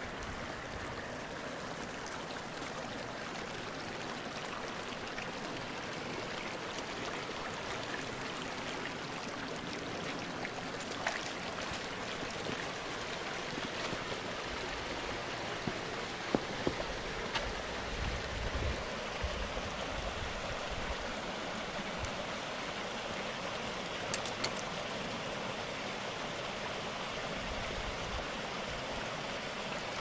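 A small creek running steadily with a constant rush of water, and a few faint clicks now and then.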